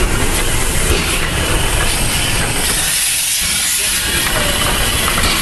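ČSD class 310 'Kafemlejnek' steam tank locomotive hissing steam over a low rumble from very close by, the hiss growing stronger about halfway through.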